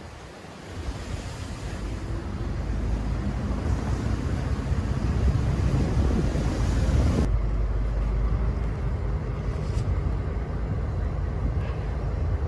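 A low, steady mechanical rumble, like heavy machinery running, that rises about a second in; about seven seconds in the sound changes abruptly as the hiss above the rumble drops away, leaving the rumble.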